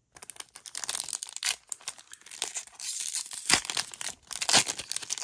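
Pokémon mini booster pack wrappers being torn open and crinkled: a dense run of irregular crackling, with sharper, louder crackles about three and a half and four and a half seconds in.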